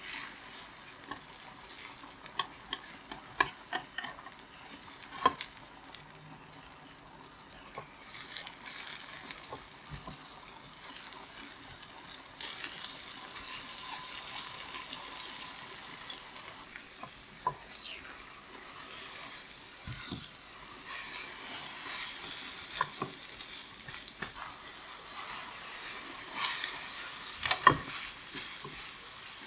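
Food sizzling in a frying pan as it is stirred, with frequent clicks and scrapes of a utensil against the pan and a sharper clack near the end.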